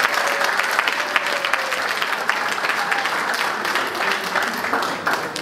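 An audience applauding: many hands clapping steadily, easing off slightly near the end.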